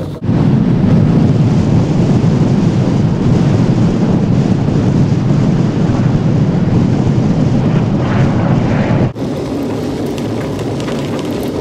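Loud, steady rush of wind and low rumble from the Ecotricity Greenbird wind-powered land yacht running at high speed under sail, with wind buffeting the microphone. It drops out briefly about nine seconds in and resumes slightly quieter.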